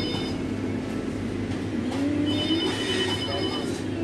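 A high electronic ringing tone that comes in bursts about a second and a half long, repeating every two and a half seconds or so, over a steady low hum.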